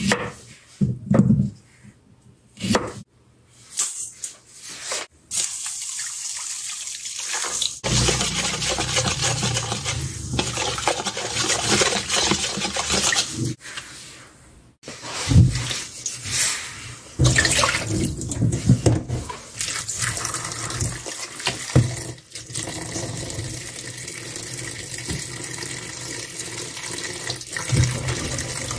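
A few knife chops through cucumber on a wooden cutting board, then tap water running into a stainless steel bowl of cucumber pieces, with splashing as the pieces are rinsed.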